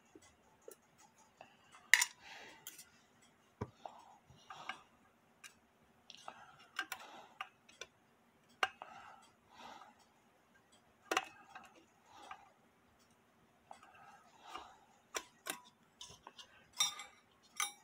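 Small screwdriver clicking and scraping against screws in a brass clock case, with irregular metallic clinks, one sharp click about two seconds in and a quick cluster near the end.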